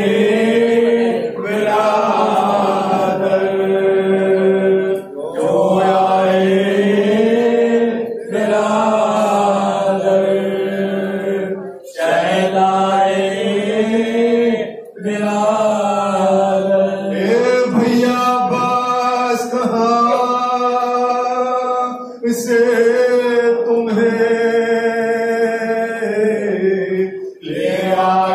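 Men chanting a nauha, a Shia Muharram lament, together into microphones. It goes in long held phrases of three to five seconds, each broken by a brief pause.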